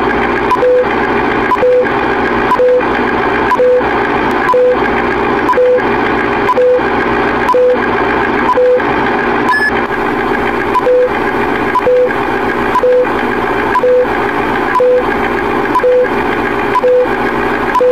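Vintage film-leader countdown sound effect: a steady projector-like rattle and crackle with a click and a short beep about once a second, one beat skipped around the middle.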